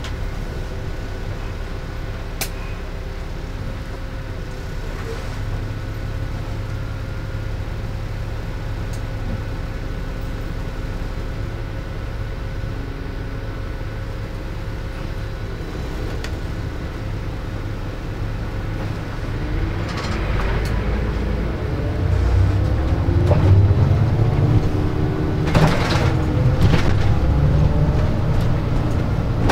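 Inside a LiAZ-5292.65 city bus: the engine runs steadily at low revs while the bus waits and creeps at a crossing. About twenty seconds in it pulls away, and the engine note rises and falls as it accelerates through its gears, louder now. A few light clicks and rattles come from the cabin.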